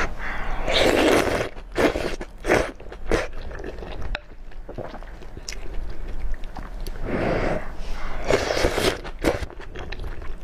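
A person slurping in wide stewed noodles and chewing them, close to the microphone: a long slurp about a second in and another around eight seconds, with many short wet chewing clicks between.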